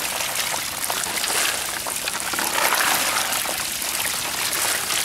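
Steady wet splashing and trickling of water, with a fine crackling patter of many small live puti fish (pool barbs) flapping as a basketful is tipped into a plastic crate.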